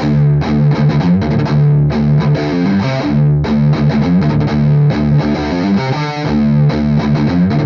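Distorted electric guitar in drop D playing a fast riff of triplets built from hammer-ons and pull-offs on the low strings, crossing to the next string.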